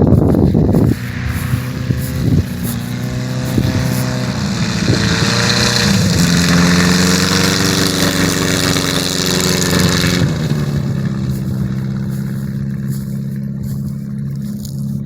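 Zenith light aircraft's engine run up: a few knocks in the first second, then the revs climb and hold, and about ten seconds in they drop back to a lower steady idle. The engine still has a miss after new coils were fitted, which the observer puts down to possibly a weak valve spring, or to the engine not being warmed up yet.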